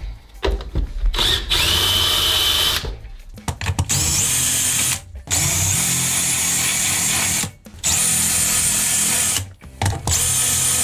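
Cordless drill with a countersink bit grinding the heads off the rivets that hold the window regulator's gear cover. It runs in about five bursts with short pauses between them, and some bursts start with a rising whine.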